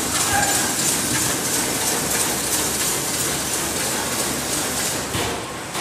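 Automatic pancake packing machine running, its conveyor belts carrying cakes along the line: a steady mechanical running noise with a strong hiss.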